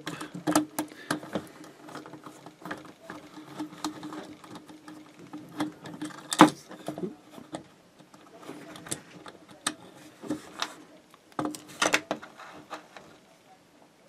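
Small metal clicks, taps and scraping from a screwdriver working the terminal screws and wire ends of toggle switches, irregular throughout, with a louder knock about halfway. A faint steady hum lies underneath.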